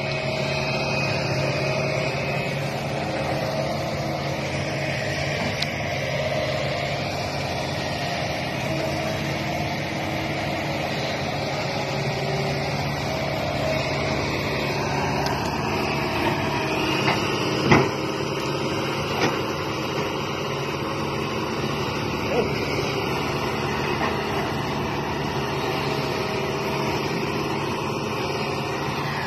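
Kobelco SK200 excavator's diesel engine running steadily under load as it digs, with a single sharp knock a little over halfway through and a few fainter clicks.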